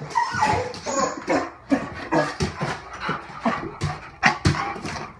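A dog whining and yelping excitedly in short, rising and falling cries, over a scatter of sharp clicks and knocks.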